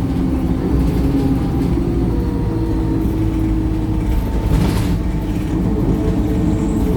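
Wright StreetLite single-deck bus's diesel engine running under way, heard from inside the bus, its note shifting slightly as it goes. A short burst of hiss about four and a half seconds in.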